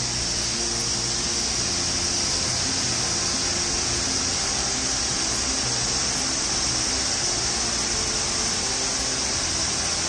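Steady rushing of water, an even unbroken hiss, with faint background music underneath.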